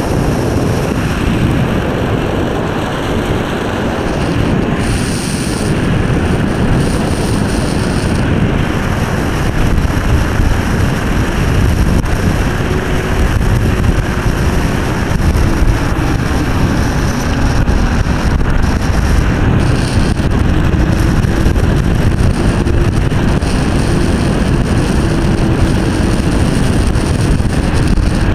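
Wind rushing over the microphone, with tyre noise from a Silenzio 45 electric scooter riding on asphalt: a loud, steady rumble. From about halfway a faint wavering whine sits above it.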